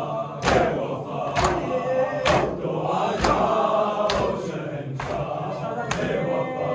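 A congregation of men chanting a Muharram noha (lament) in unison, with rhythmic chest-beating (matam): a sharp slap lands about once a second under the singing.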